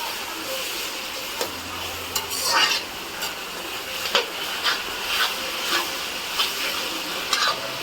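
Chopped vegetables (cabbage, capsicum, onion, carrot) sizzling in hot oil in a pan while a spatula stirs them. It makes short scraping strokes against the pan, one longer one about two seconds in, then about two a second.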